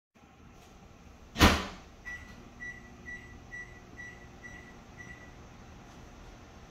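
A single loud thump, then a string of about seven short electronic beeps at one high pitch, evenly spaced about half a second apart, like an appliance's alarm signal.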